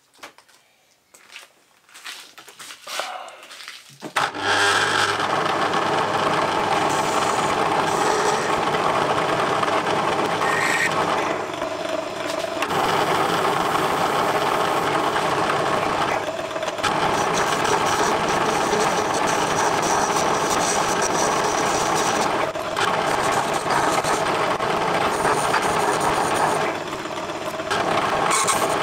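Small metalworking lathe switched on about four seconds in and running steadily with its chuck spinning. A few faint handling sounds come before it starts.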